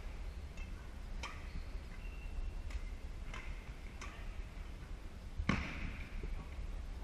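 Badminton rackets striking a shuttlecock during a rally: about five sharp taps a second or so apart, the loudest about five and a half seconds in, echoing in a large gym hall.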